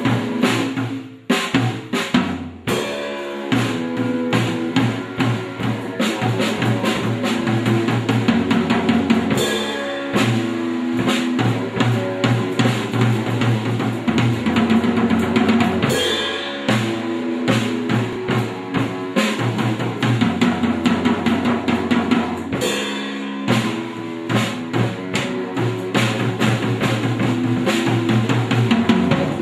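Instrumental band music led by a drum kit playing a steady beat on kick and snare, under sustained pitched bass and chord parts. There is a short break about a second in.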